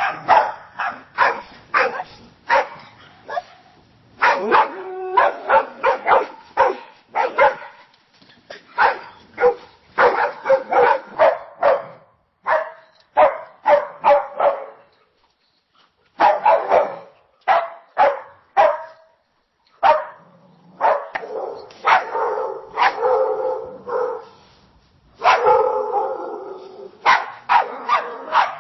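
Dogs barking in rapid volleys of short, sharp barks, with brief pauses between the bursts; several different barking recordings follow one another.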